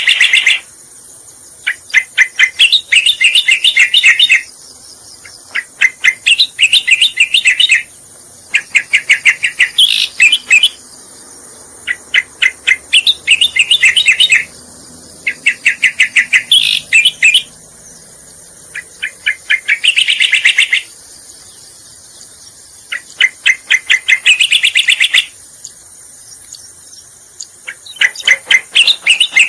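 Recorded lure song of a cica koreng (striated grassbird). It comes in repeated phrases of about two seconds each: a fast stutter of sharp notes running into a bright trill, with a short pause between phrases.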